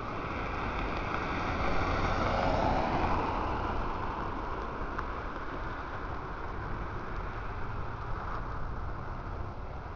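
A car passing close by on the road, its tyre and engine noise swelling to a peak about two to three seconds in and falling in pitch as it goes by, then fading into steady distant traffic noise.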